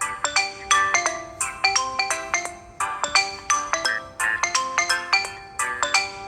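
Xiaomi Redmi 13C smartphone playing a ringtone: a bright melody of short, quickly fading bell-like notes, several a second, in repeating phrases.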